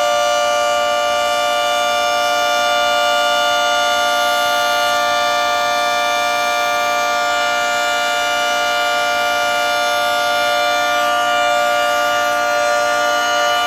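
Federal Signal 3T22 electromechanical outdoor warning siren sounding a steady Alert signal: a loud chord of several held tones that neither rises nor falls.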